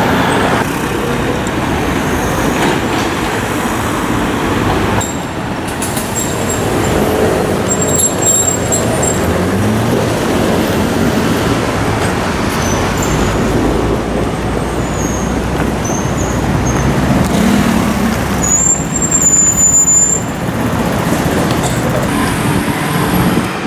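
City street traffic dominated by motor scooters, with engines rising in pitch as they pull away, amid passing cars and buses. Brief high-pitched squeals sound a few seconds in and again near the end.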